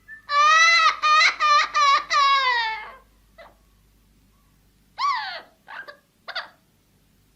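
Parrot calling: a long pitched call, wavering and broken into about five pulses, that falls in pitch at its end, then three short calls a couple of seconds later.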